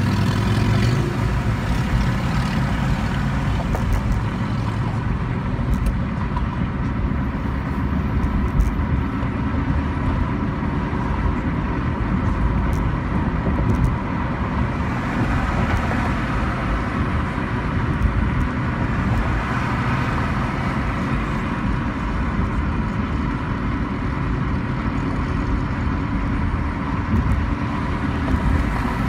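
Steady road noise heard from inside a moving car: tyres on pavement and the engine running at an even cruising speed.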